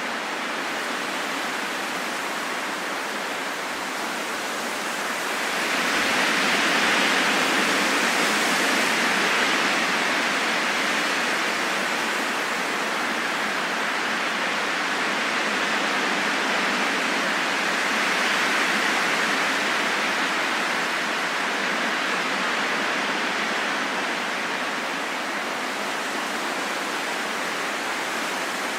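Wind blowing steadily as an even rush, swelling in a gust about six seconds in, easing, then swelling again more gently past the middle.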